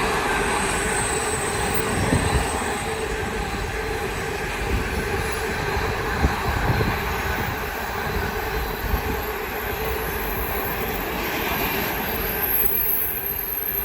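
Freight train hauled by a Class 88 locomotive rolling past, a steady run of wheel-on-rail noise from the passing wagons that eases slightly near the end.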